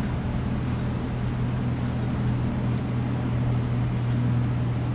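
A steady low mechanical hum, unchanging throughout, with a few faint light clicks of small parts being handled.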